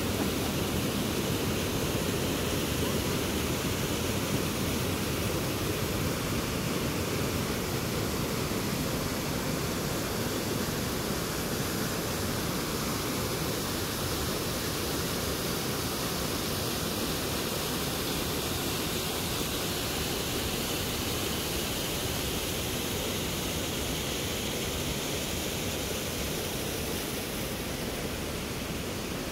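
Wind blowing over a phone's microphone: a steady, deep rush with hiss above it, easing off slightly toward the end.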